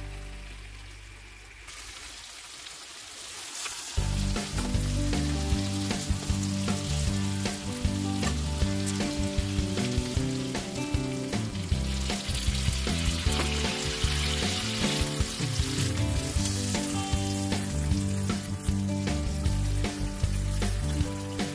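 Chicken kofta and potato curry sizzling and bubbling in a non-stick pan, with small clicks from a spatula stirring it. Background music comes in about four seconds in.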